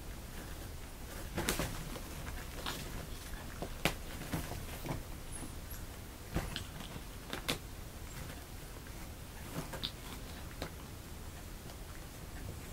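Fabric pop-up cat tunnel rustling and its frame flexing as a kitten paws at and climbs over it, with its claws catching the fabric in scattered sharp taps and scratches, the sharpest about a second and a half in, at about four seconds and at about seven and a half seconds.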